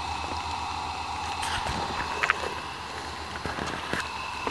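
Steady background hiss with a faint high steady tone, broken by a few light scattered ticks.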